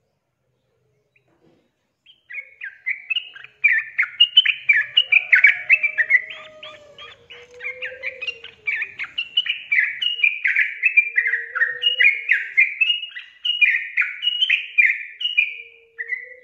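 Yellow-vented bulbul singing: a long, fast run of short chirping notes that each slide downward, starting about two seconds in.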